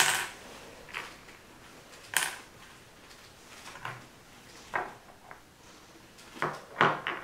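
Small plastic toy buttons and pieces being set down one at a time on a wooden tabletop: a series of light, irregular taps and clicks, a few close together near the end.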